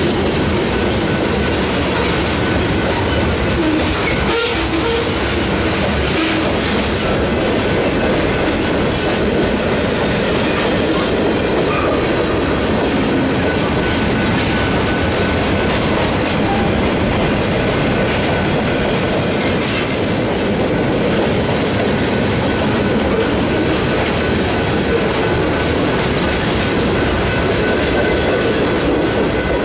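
Freight cars of a mixed manifest train rolling past close by: a steady, loud rolling noise of steel wheels on rail that does not let up.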